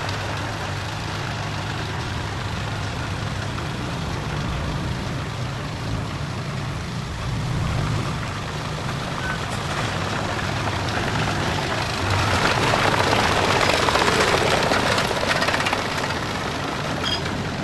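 Heavy vehicle's engine running with a steady low rumble; a louder rushing noise joins about twelve seconds in and fades a few seconds later.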